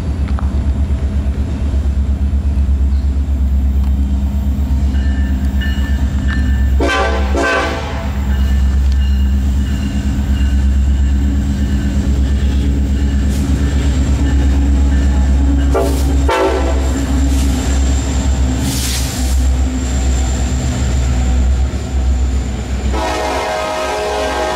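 BNSF coal train led by EMD SD70ACe diesel locomotives passing close by, with a heavy engine rumble throughout. The locomotive horn sounds three times: a short blast about seven seconds in, another about sixteen seconds in, and a longer one near the end as the loaded coal cars roll past.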